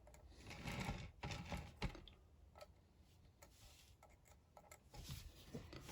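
Faint light clicks and soft rubbing as a metal-grid soldering board is turned by hand on its rotating base.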